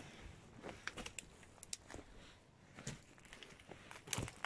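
Footsteps crunching on pebbles and broken shell: scattered, irregular crunches and clicks, with a louder crunch about four seconds in.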